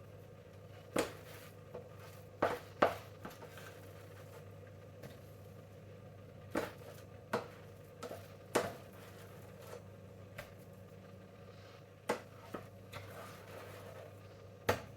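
A utensil knocking and clinking against plates and a pan while mashed potato is served out: about eight short, separate knocks spread over the few seconds, over a faint steady hum.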